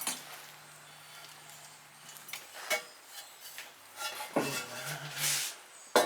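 Ceramic kiln furniture and glazed pots being handled: a few sharp clinks and knocks of fired clay against kiln shelving, with about a second of scraping as pieces are slid out near the end.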